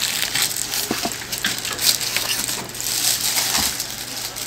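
Plastic packaging being handled during an unboxing: irregular crinkling and rustling with a few light knocks, over a steady low hum.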